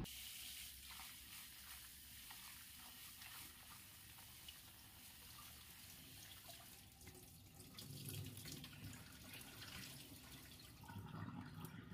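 Faint kitchen tap running into a plastic colander as drumstick flowers are rinsed by hand, a steady splashing hiss, with a few soft low bumps from handling later on.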